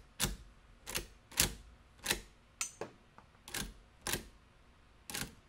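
Sharp metallic clicks and clacks from the action of a Winchester 1892 lever rifle being worked by hand, about eight of them at uneven intervals, as rounds are cycled through it in a feeding check.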